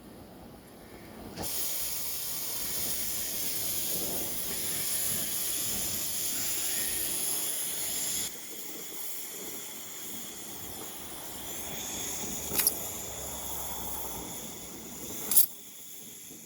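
Hand torch flame hissing as it heats a chainsaw crankshaft bearing so the bearing expands and slips off the shaft. The hiss starts abruptly about a second and a half in, drops to a softer hiss after about eight seconds, and two sharp clicks come near the end.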